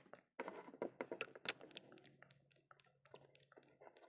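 Faint, irregular clicks and taps of plastic toy figurines being handled and knocked against a wooden play table and a small plastic bowl.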